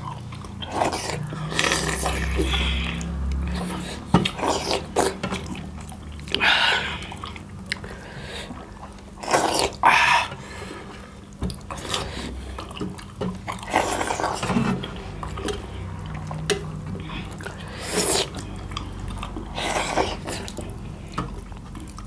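Close-up eating sounds: wet, irregular slurps, smacks and chewing of spicy chicken curry with millet dhido, with a few louder mouth noises scattered through.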